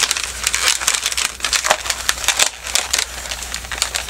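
Inflated 260 latex modeling balloons being twisted and repositioned in the hands: a dense run of short, irregular rubbing squeaks and crinkles of latex against latex and gloves.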